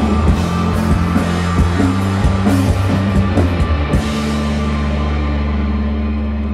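Rock band with electric guitar, bass and drums playing loud; about four seconds in the drums stop, leaving a held chord ringing out and slowly fading.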